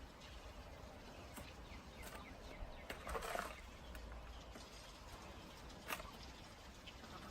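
Faint bird calls, with a short louder call about three seconds in and a single sharp click near six seconds.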